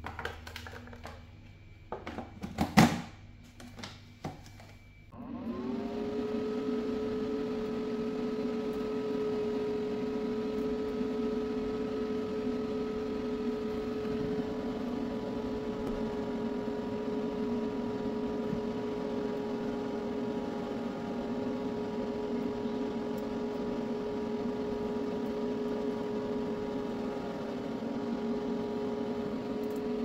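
A few knocks and clicks of plastic parts being handled, the loudest about three seconds in. Then, about five seconds in, a small electric fan motor spins up and runs with a steady hum.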